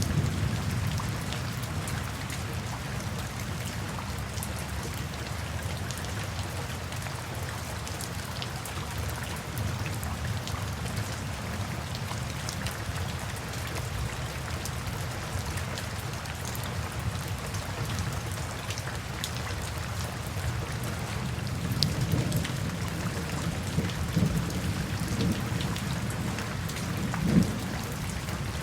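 Steady rain falling, with a deep low rumble underneath that swells a few times near the end.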